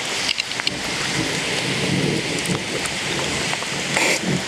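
Heavy tropical rain pouring onto the river surface and a rain jacket, with thunder rumbling low through the second half.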